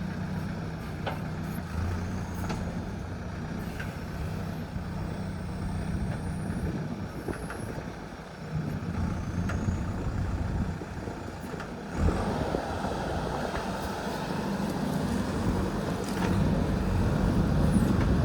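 JCB 3DX backhoe loader's diesel engine running under working load, its pitch rising and falling, with a few sharp knocks. It gets louder, with more rattle, from about twelve seconds in.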